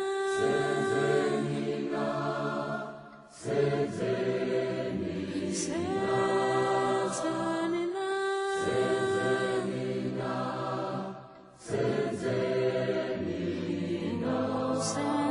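Choral singing: several voices holding long notes in phrases, with short breaks about three and a half and eleven and a half seconds in.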